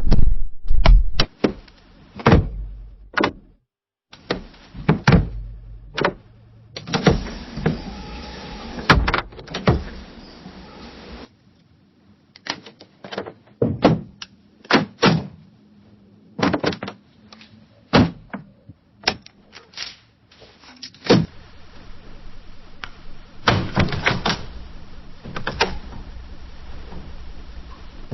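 A window being opened and shut again and again: a string of sharp knocks and clunks from the window and frame, with longer scraping slides between them and a brief pause about a third of the way in.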